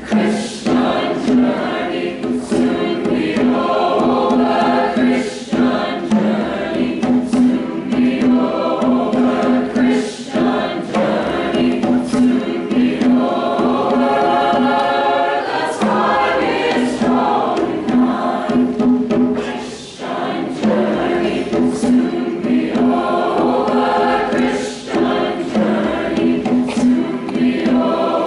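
School choir singing a spiritual, with a steady low beat under the voices.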